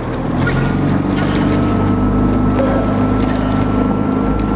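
Motor launch's engine running steadily under way, a little louder from about a second in, with wind on the microphone.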